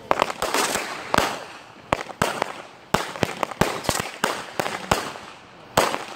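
Fireworks firing in quick succession: an irregular string of sharp bangs and pops, a little over two a second, as shots launch and burst overhead.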